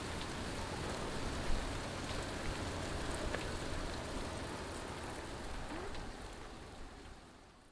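A swarm of brown locusts flying overhead makes a steady, rain-like hiss of countless wings, which fades out near the end.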